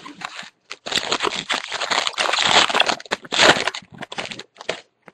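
Plastic crinkling and crackling as trading cards and their plastic wrapping or sleeves are handled, dense and loud from about a second in, thinning out near the end.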